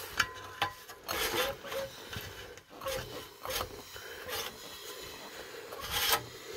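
Intermittent metal scraping and rubbing with several short knocks, from hands and tools working at the opened bottom end of a Toyota 3S-FE engine. The loudest scrapes come near the end.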